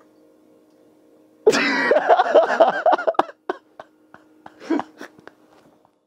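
A loud burst of laughter in quick pulses, lasting about a second and a half over a faint steady hum, then a few scattered clicks and a short breathy sound.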